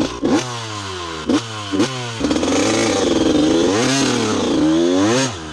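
Honda CR125 two-stroke dirt bike engine blipped sharply three times, each rev falling back, then held at higher revs that rise and fall under throttle before dropping away near the end.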